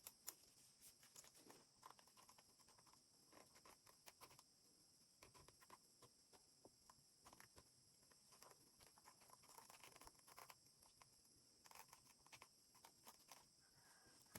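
Faint, irregular light taps and clicks of hands handling a doll and its small parts or clothes, over a steady high hiss.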